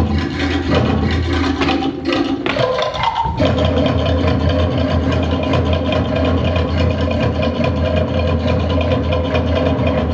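A steady, loud low drone with held higher tones over it; the drone drops out briefly a little under three seconds in, a short rising tone sounds, and then the drone and held tones resume.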